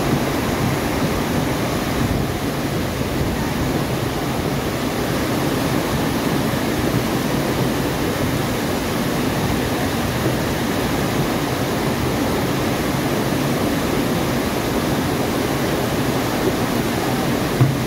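Muddy floodwater rushing fast down a concrete street channel, with drain outlets in the channel wall gushing into it: a steady, loud rush of water throughout.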